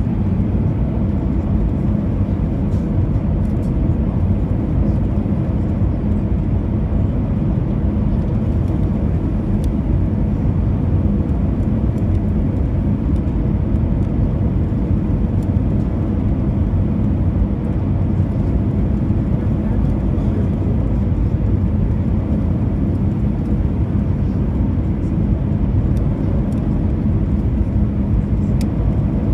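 Steady cabin noise inside an Airbus A320 in flight: a low, constant engine and airflow rush with a faint steady hum.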